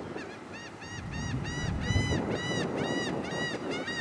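A bird calling in a rapid, even run of short, ringing notes that each rise and fall, about three to four a second, over a low rumble.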